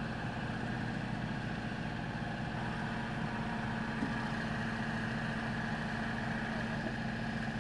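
Tow truck's engine idling steadily, with a steady high whine riding over the engine hum.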